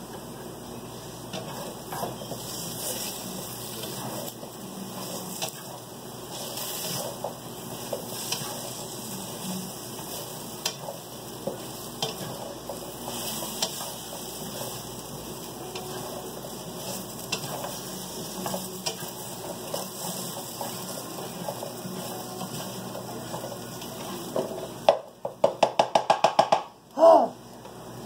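Potatoes frying in butter in a steel skillet, sizzling steadily, with the spatula clicking and scraping against the pan as the fries are stirred. Near the end comes a quick run of about eight loud knocks, about five a second, then one more louder one.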